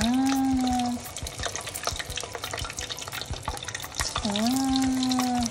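Banana fritters deep-frying in hot oil, crackling and popping throughout. A voice holds a long, steady note twice, once at the start and again about four seconds in, louder than the frying.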